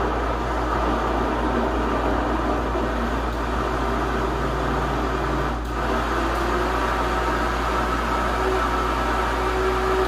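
Countertop blender running steadily at full speed, blending corn cake batter, with a short dip in the motor's sound about five and a half seconds in.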